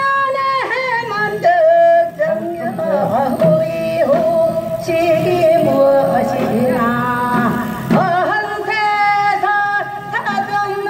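Korean Gyeonggi folk singing in the noraetgarak style: a voice holding long notes with wide, wavering vibrato, over traditional instrumental accompaniment.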